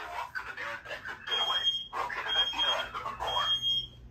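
Fire alarm horn sounding the temporal-3 evacuation pattern: three high, steady beeps about a second apart, then a pause. Under it, a prerecorded voice evacuation message plays from the alarm system's speaker.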